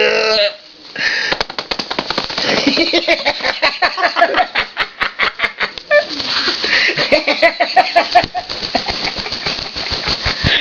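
Cockatoo making a rapid, irregular run of sharp taps and clicks, mixed with low, muttering calls that start a couple of seconds in.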